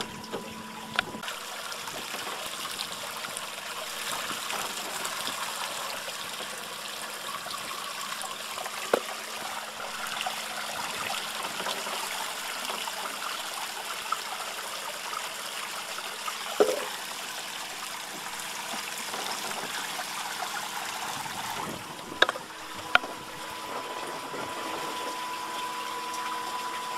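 Water splashing and rushing past the boat's hull and the trolling motor mount as the boat runs under power. A few sharp knocks come through at scattered moments.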